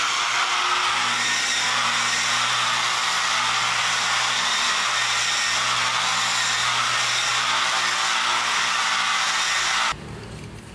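Handheld electric polisher with a round buffing pad running steadily as it buffs a jet black granite countertop: a loud, even hiss over a low motor hum. It cuts off suddenly near the end.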